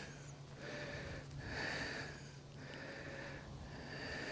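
A person breathing close to the microphone, about four soft, hissy breaths roughly a second apart, over a faint steady low hum.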